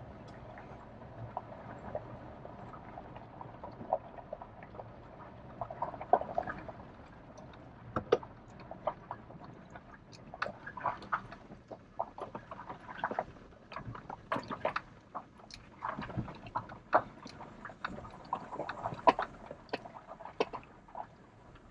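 Cab of a Nissan Frontier 4x4 pickup creeping over a rutted dirt trail: a low steady rumble from engine and tyres, with irregular clicks, creaks and knocks as the truck jolts over bumps. The knocks come thicker in the second half.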